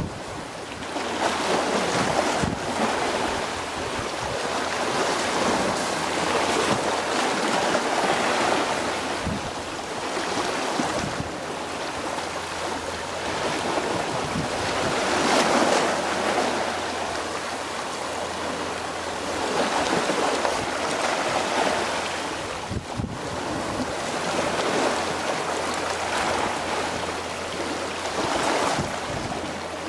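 Small waves washing against the shore, swelling and easing every few seconds, with wind buffeting the microphone.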